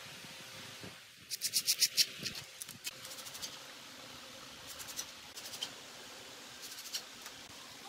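A quick run of about eight sharp clicks a second or so in, then scattered lighter clicks and taps, from a cordless drill being handled.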